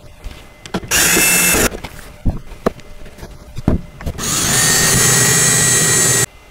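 Cordless drill/driver driving long bolts through a wooden end panel into the side rails. There is a short run about a second in, a few light knocks, then a longer steady run of about two seconds that stops abruptly.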